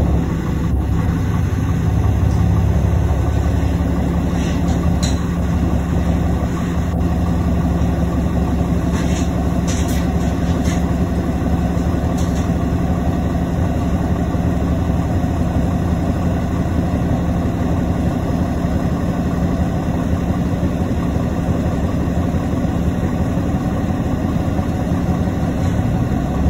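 Cummins ISL inline-six diesel of a 2005 New Flyer D35LF transit bus running at a steady pitch, heard from inside the bus, with a few light rattles near the middle.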